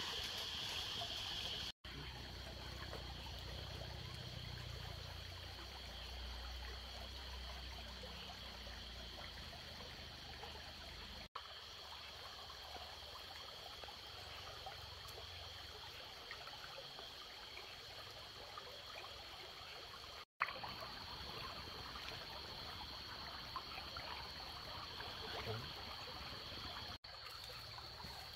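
Wood campfire crackling with fine irregular pops, over a steady high insect chorus at night. The sound cuts out for an instant several times.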